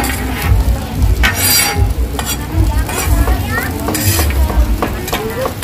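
Okonomiyaki sizzling on a flat steel griddle, with a metal spatula scraping and tapping across the griddle surface several times.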